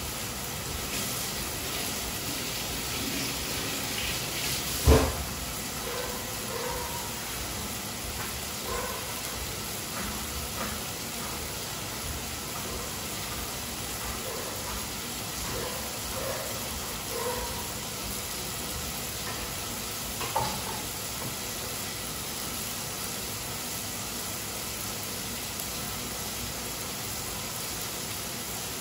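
Chopped tomatoes, green chili and greens sizzling steadily in a frying pan, with a sharp knock about five seconds in and a smaller one about twenty seconds in.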